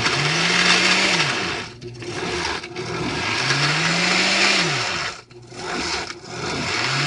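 Countertop blender run in pulses while its button is held, the motor spinning up and winding down about three times, with the blades churning a thick smoothie of frozen kale, fruit, yogurt and juice.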